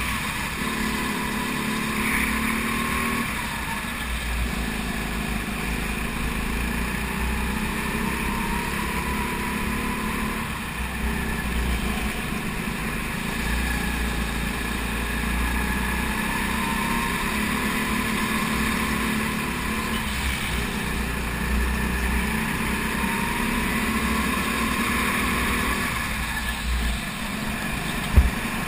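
Racing kart's small engine running hard, heard from the onboard camera, its pitch dropping and rising every few seconds as the kart brakes for corners and accelerates out of them. A single sharp knock near the end.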